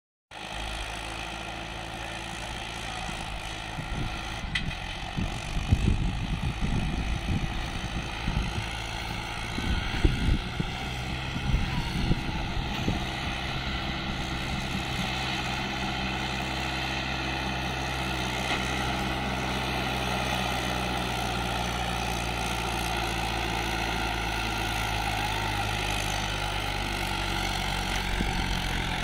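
Swaraj 843 XM tractor's three-cylinder diesel engine running steadily under load, hauling a sand-laden trolley through soft sand. Rough, louder surges come and go in the first half.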